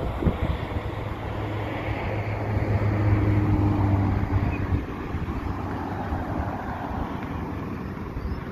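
Vehicle engine and road noise with wind on the microphone, a low engine hum swelling from about two and a half seconds in and easing off near the middle.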